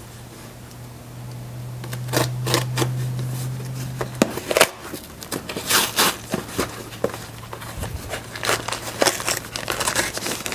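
A cardboard shipping box being forced open by hand: irregular tearing, scraping and crinkling of cardboard and packaging, the box being hard to open. A steady low hum sounds beneath it until about four seconds in.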